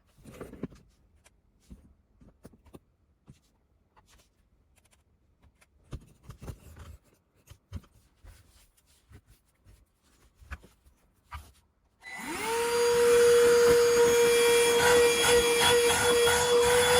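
Scattered light clicks and knocks of handling, then a cordless handheld vacuum switched on about twelve seconds in: its motor spins up quickly and settles into a loud, steady whine over a rush of air.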